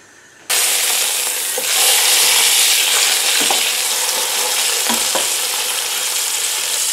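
Pork loin roll sizzling as it browns in hot oil in a stainless steel pot, cutting in abruptly about half a second in and getting louder soon after. A few knocks of wooden spoons turning the meat against the pot.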